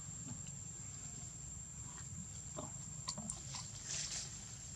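Small scattered clicks and snaps, with a brief rustle of leaves about four seconds in, as a young macaque climbs among tree branches. A faint steady high tone and a low hum sit underneath.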